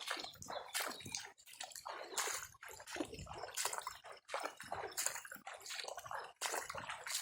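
Floodwater sloshing and splashing in irregular strokes.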